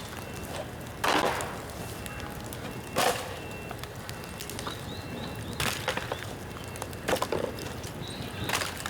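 Bamboo bonfire crackling, with about five sharp cracks a second or two apart as the burning wet bamboo splits and pops.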